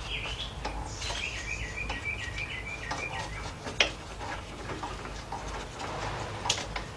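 A bird singing a run of quick repeated chirping notes in the background for about the first three seconds. A sharp click comes about four seconds in and another near the end.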